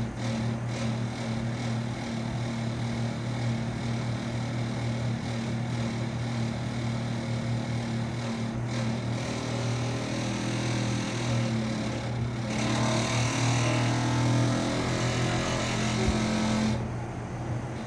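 Elgin Eco Inverter 9000 BTU split air conditioner running with a steady low hum and a second, higher tone; this is the unexplained noise that two technicians could not trace. About twelve seconds in the sound grows louder with added hiss and wavering tones, then drops back about a second before the end.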